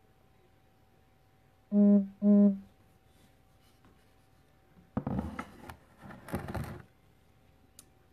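Two short, loud buzzes at one steady low pitch, about half a second apart. From about five seconds in comes a couple of seconds of rustling and handling noise as a card sign is lowered and put down.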